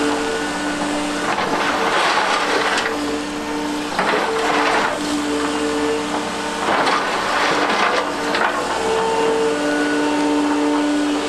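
Liebherr R930 crawler excavator working: its engine and hydraulics run with a steady two-tone whine that drops in and out, and a surge of harsher noise every two to three seconds.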